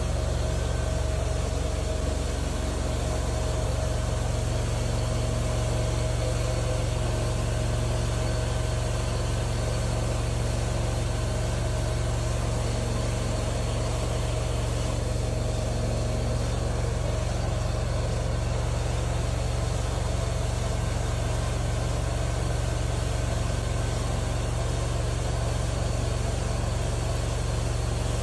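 Truck-mount hot-water extraction carpet cleaner running steadily, its wand spraying and sucking water from the carpet as it is drawn along. The sound is a constant machine hum with a rushing hiss of suction.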